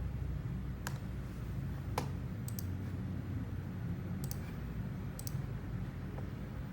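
Individual keystrokes on a Tester68 mechanical keyboard with Gateron Milky switches and modded stabilizers: about six sparse clicks, several in quick pairs, over a steady low hum.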